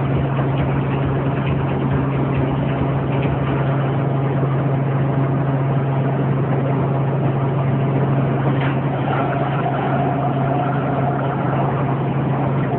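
Helicopter noise heard from inside the cabin: a steady, unbroken engine and rotor drone with a constant low hum.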